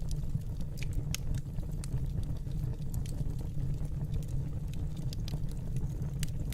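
Wood fire crackling: a steady low rumble with irregular sharp pops and snaps scattered through it.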